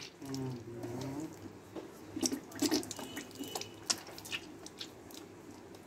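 Liquid dripping and splashing onto stone paving in a string of short splats as a draining abscess on a cattle's lower leg is flushed out.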